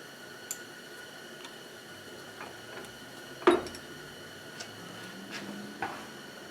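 Scattered light clinks and knocks of small hard parts or tools being handled, about six in all, the loudest near the middle.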